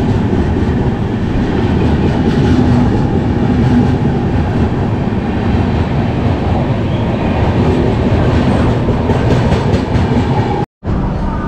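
Coaches of the Tamil Nadu Express rushing past close alongside on the next track: a loud, steady rumble of wheels on rail with a rapid clatter. It breaks off abruptly near the end.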